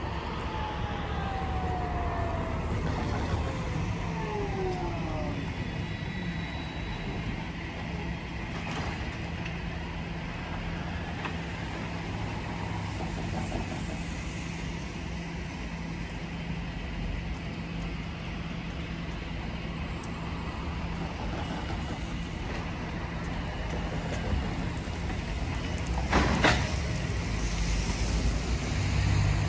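Bombardier Eurotram braking into a stop: its traction drive gives a falling whine over the first few seconds. It then stands with a steady low hum from its equipment. A short sharp sound comes about 26 seconds in, the loudest moment.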